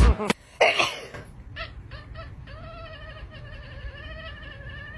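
A cat yowling: a short loud cry about half a second in, then a long, wavering, drawn-out yowl from about two and a half seconds on.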